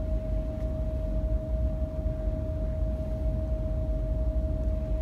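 Steady low rumble with a constant mid-pitched whine through it, unchanging throughout.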